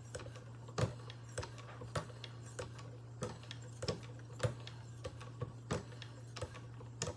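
Sharpening stones on a guided-rod sharpener stroking along a Spyderco Roc Salt's steel edge with very light pressure, only the stones' own weight. Each stroke gives a short light scrape, about one every two-thirds of a second, in an even rhythm.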